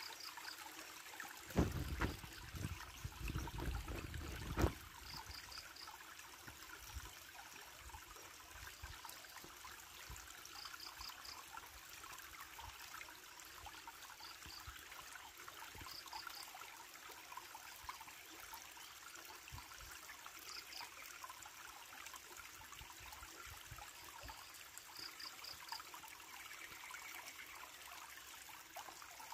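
Shallow stream trickling over rocks, a steady faint wash of water. About two seconds in, a few seconds of low rumbling knocks, and throughout, faint high chirps come in short groups of three or four every few seconds.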